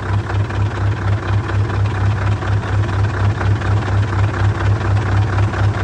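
Scania semi truck's diesel engine idling, heard close through the opened front, a steady low throb pulsing about five times a second.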